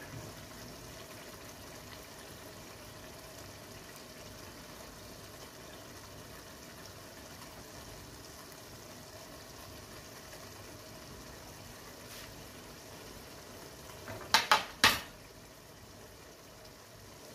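Pot of aloo matar qeema (potato, pea and mince curry) simmering with a steady, low hiss, cooked and ready. About fourteen seconds in come three sharp knocks in quick succession.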